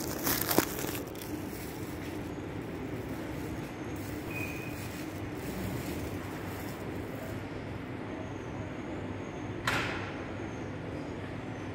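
Steady low hum of a large, quiet airport terminal hall. A short clatter comes about half a second in, and a single sharp knock with a brief echo comes near the end.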